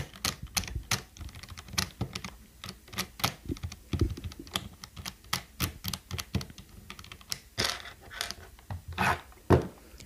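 Bare red-stem mechanical keyboard switches, keycaps off, pressed and flicked rapidly by finger: a quick, irregular run of plastic clacks, with a louder knock near the end. The switches are being worked after a rubbing-alcohol soak to dislodge the dirt that makes them unresponsive.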